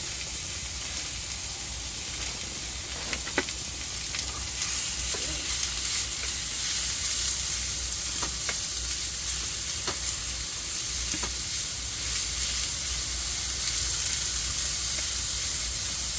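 Minced beef sizzling as it fries in a hot pan, a steady hiss with a few sharp clicks as it is stirred.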